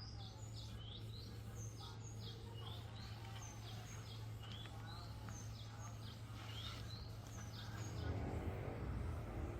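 A songbird calling in a quick string of short, sweeping chirps, some rising and some falling, over a steady low hum.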